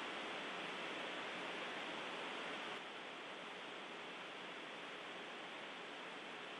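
Steady hiss of an open radio audio feed between transmissions. It drops slightly in level about three seconds in.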